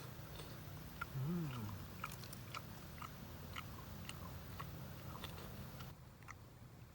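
A person chewing crunchy food up close, with many small sharp crunches. About a second in there is a short voiced sound that rises and falls in pitch.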